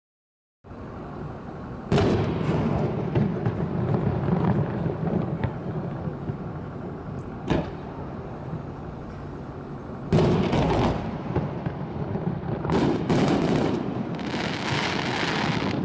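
Fireworks display: aerial shells bursting with loud bangs about 2, 7.5, 10 and 13 seconds in, each followed by a rolling rumble. A crackling hiss from glittering bursts follows near the end.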